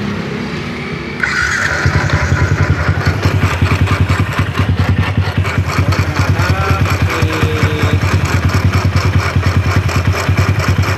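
Yamaha Jupiter MX 135 cc four-stroke single-cylinder engine started with the water pump removed, then running with a fast, even pulsing beat and a rough, grating edge, which the mechanic suspects comes from a worn camshaft bearing.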